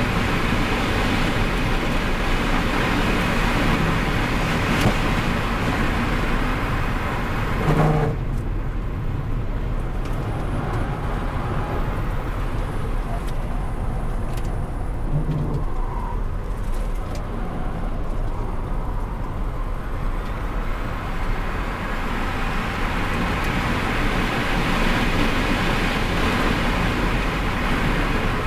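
Onboard sound of an electric performance car at speed, mostly wind and tyre noise. About eight seconds in the hiss suddenly drops away, then it builds back up over the following fifteen seconds.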